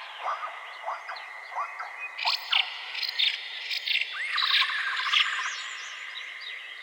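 Forest birds calling: short rising chirps repeated through the first half, then louder rapid trills twice, over a steady high insect drone.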